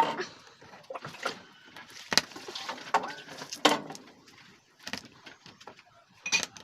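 Kitchen clatter: dishes, containers and utensils being handled and set down, with several irregular sharp knocks about a second apart.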